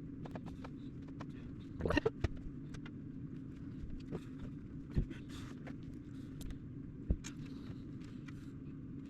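Scattered small clicks and taps of metal parts and tools being handled while reassembling a mechanical adding machine's carry mechanism, the sharpest about two, five and seven seconds in, over a steady low hum.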